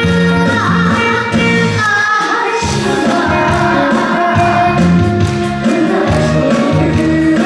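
A young boy singing a Korean trot song over a band accompaniment with a repeating bass line.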